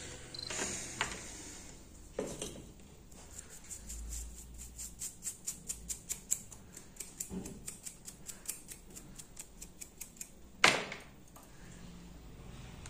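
Light clicking and tapping of small hard objects: a quick run of clicks, about four or five a second, lasting several seconds, with a few duller knocks and one loud sharp knock near the end.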